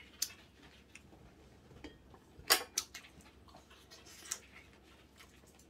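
A few scattered light clicks and clinks of spoons and chopsticks against bowls and plates during a meal, the loudest about two and a half seconds in.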